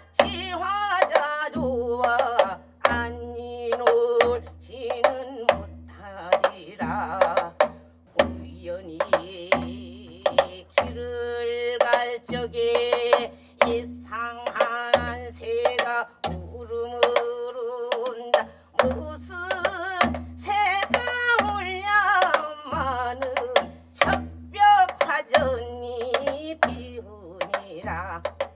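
A woman singing a Gyeonggi-style Korean folk song (gyeonggi minyo) in a bending, ornamented voice. She accompanies herself on a Korean buk barrel drum, which gives a steady beat of deep strokes with sharp clicks between them.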